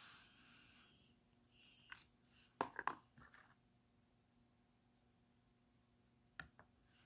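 Fingers handling a plastic slime tub: a quick cluster of three or four light clicks and taps on the plastic about three seconds in, and another pair of clicks near the end. Otherwise near quiet, with a soft hiss fading in the first second.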